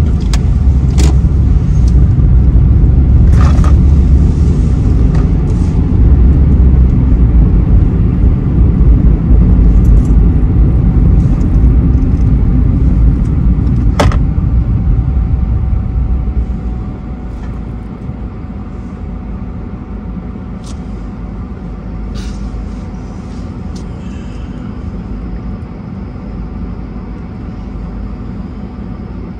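Car cabin noise while driving, a steady low rumble of tyres and engine that drops off about halfway through as the car slows and stops at a red light, leaving a quieter idling hum. One sharp click sounds around the middle.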